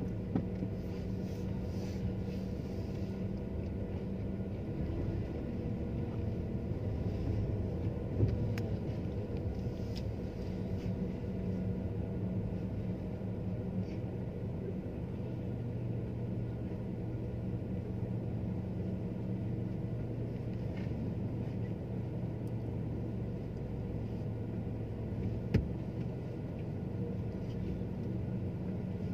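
Low, steady rumble of a car's engine and tyres moving slowly in traffic, with a couple of brief clicks, one about eight seconds in and one near the end.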